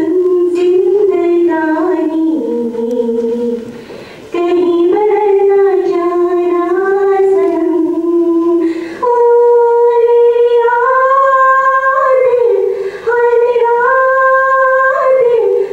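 A woman singing solo and unaccompanied into a handheld microphone, in long held notes with wavering, ornamented pitch. Her phrases are broken by short breaths.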